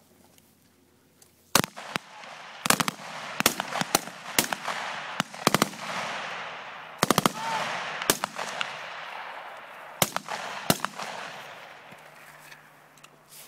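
Live small-arms fire from soldiers' rifles: single shots and short bursts of two to four rounds. It starts about a second and a half in and stops around eleven seconds, each volley trailed by a long rolling echo.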